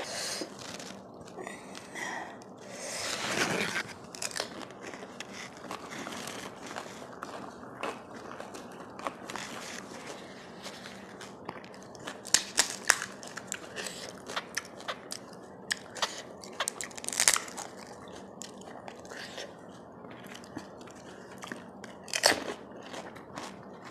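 Pani puri being eaten close to the microphone: crisp fried puri shells crunching and cracking between the teeth, with wet chewing. A few sharp, louder crunches stand out, about halfway through, near three-quarters and near the end.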